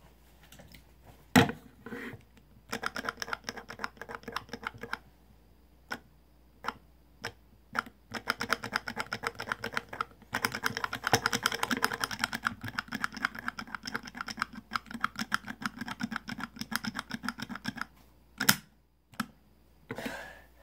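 Plastic toy dinosaur handled close to the microphone: rapid runs of small plastic clicks and taps, with a sharper knock at the start and another near the end.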